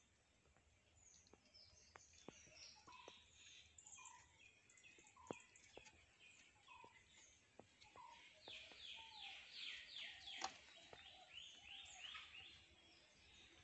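Faint birds calling: a short, repeated mid-pitched call about once a second, with higher chirps over it, and a fast run of chirps a little past halfway. A few sharp clicks are scattered through, the loudest about two-thirds of the way in.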